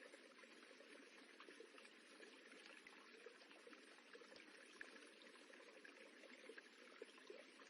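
Faint, steady rippling of running water, with small irregular splashes scattered through it.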